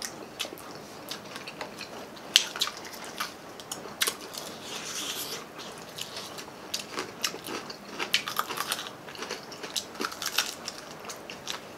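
Close-up mouth sounds of people eating crispy garlic fried chicken drumsticks: irregular crunching bites and wet chewing. One loud, sharp crunch comes about two and a half seconds in.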